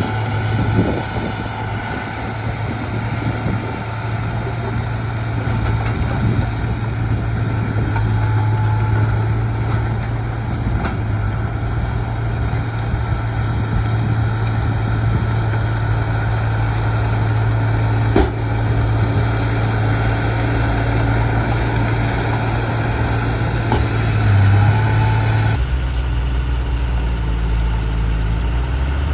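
Heavy diesel earthmoving machinery running steadily, with a deep engine drone and a single sharp knock partway through. Near the end the engine note shifts lower.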